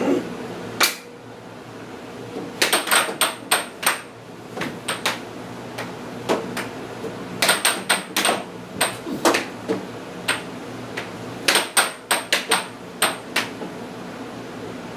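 Air hockey puck and mallets clacking: rallies of sharp knocks as the puck is struck by the mallets and rebounds off the table's rails, coming in quick clusters with single hits between.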